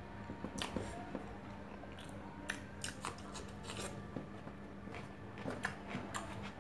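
Close-up mouth sounds of someone eating with his hand: wet chewing and smacking of a mouthful of rice and chicken, with irregular clicks as fingers gather rice on a stainless steel tray. A steady low hum sits underneath.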